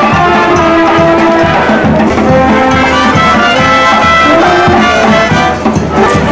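Brass band music: trumpets and trombones playing a melody.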